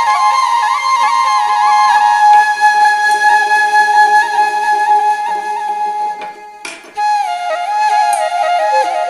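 Background music: a flute melody playing over a held drone note, breaking off briefly about six seconds in and then resuming.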